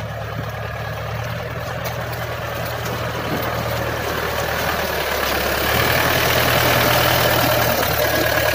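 Compact tractor engine running steadily, driving a PTO-driven levee-forming machine through wet paddy mud, getting gradually louder.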